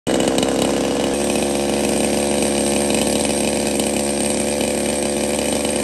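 Two-stroke chainsaw running at steady high revs, its pitch held level throughout.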